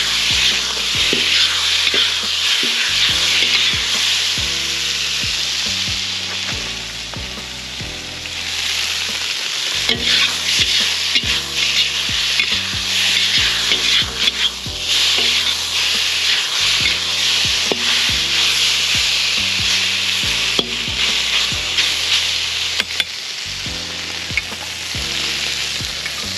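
Sliced beef sizzling in a hot wok while a metal ladle and spatula stir and toss it, clicking and scraping against the pan. The sizzle eases a little a couple of times, then picks back up.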